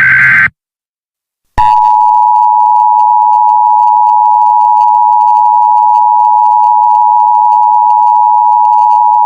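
Emergency Alert System broadcast: the last of the SAME digital header bursts ends about half a second in. After a second of silence, the EAS two-tone attention signal (853 and 960 Hz together) starts and holds steady, marking the alert message that follows.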